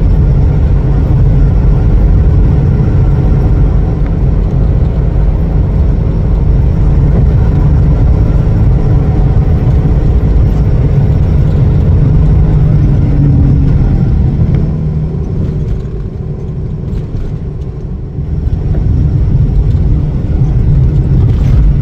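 Road traffic: a loud, steady rumble of vehicle engines and tyres on the highway. It softens for a few seconds near the end, then rises again.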